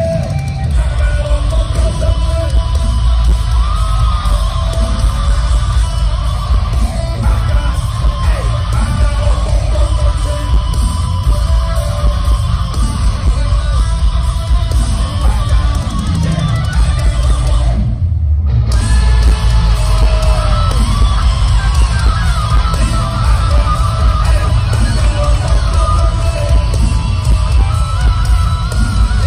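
Live rock band playing at full volume through an arena PA: distorted electric guitars, heavy bass and drums, with vocals. Everything but the bass cuts out for about half a second roughly two-thirds of the way through.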